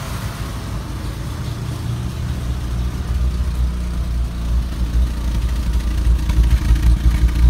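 BMW Bavaria's straight-six engine idling with a low rumble that grows a little louder and more uneven in the second half. The idle problem is put down to a vacuum leak.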